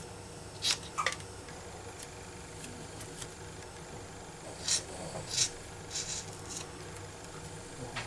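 Tonic scissors snipping a rubber stamp free of its very sticky mounting sheet: short, sharp cuts at uneven intervals, two close together about a second in and a few more in the second half.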